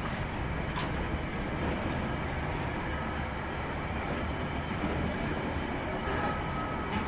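Grain hopper wagons of a freight train rolling slowly past, a steady rumble of wheels on rail with a few faint clicks.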